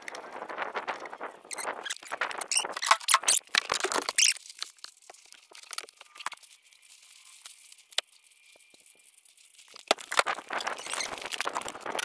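Irregular squeaks, scrapes and clicks of a piece of old rubber hose being worked around a bar and tightened by hand. They are busy for the first few seconds, die down to a few scattered ticks, then pick up again near the end.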